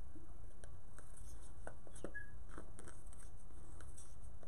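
Scissors snipping through felt: a scattered series of short, sharp cuts over a steady low hum.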